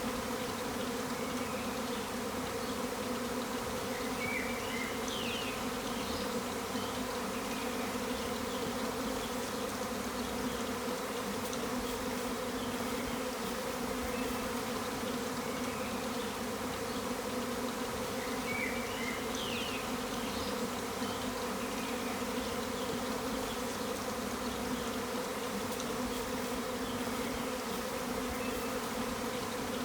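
A swarm of thousands of honey bees in flight, buzzing as one loud, steady, deep hum.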